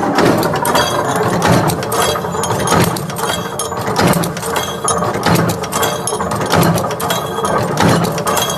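Machinery clanking and clicking in a steady working cycle, with a low thud repeating about three times every two seconds under sharper metallic clinks.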